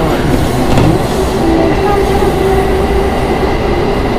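Electric train in motion, heard from inside the car: a steady rumble of wheels on the track with a steady hum running through it.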